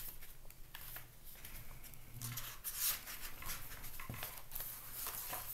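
Loose sheets of paper rustling as they are handled and leafed through: scattered soft crackles and brushes, one a little louder about three seconds in.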